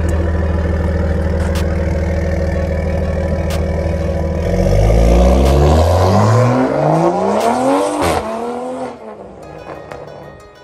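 Toyota Supra A90 with a Magnaflow xMOD cat-back exhaust and catless downpipe, a steady low exhaust rumble as it rolls off, then accelerating hard about four and a half seconds in, the note rising in pitch several times before fading into the distance. Background music comes in near the end.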